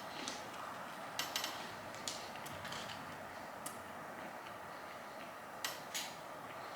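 Quiet eating sounds: a few soft, sharp clicks and mouth noises while chewing hash browns, over a faint steady hiss.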